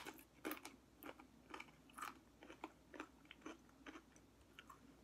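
Chewing crunchy tortilla chips: a run of faint, irregular crunches, two or three a second.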